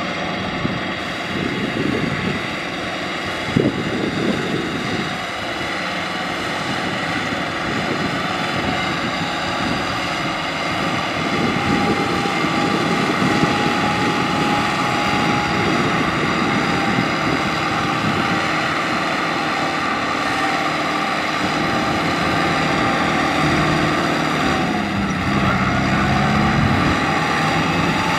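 Farm tractor's diesel engine running hard, hauling a trailer loaded with rice sacks out of a muddy paddy field. One sharp knock sounds about three and a half seconds in, and the engine's pitch shifts near the end.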